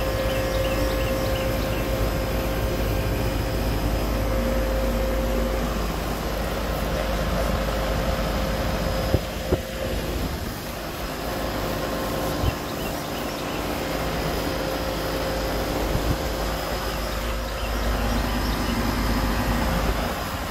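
Goodman CKL36 3-ton central air conditioner condenser unit running steadily, its compressor and condenser fan giving a constant hum and rush, the sign that the unit has kicked on and is working. A few short knocks sound around the middle.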